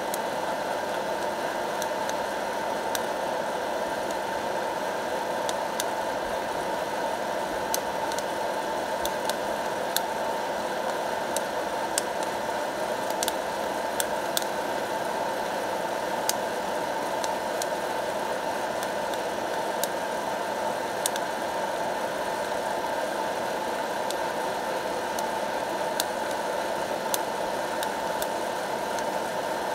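Hot-air popcorn popper roasting coffee beans, its fan blowing steadily with the heater on, and scattered sharp clicks every second or so.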